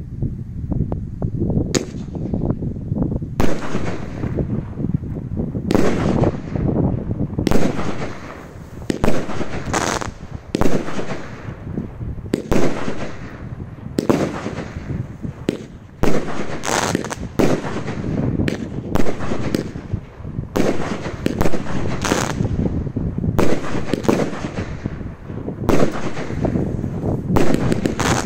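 Epic Fireworks Mayhem, a 19-shot 30mm-bore consumer firework cake, firing its shots: sharp bangs of tubes launching and shells bursting, about once a second, over a continuous rumble.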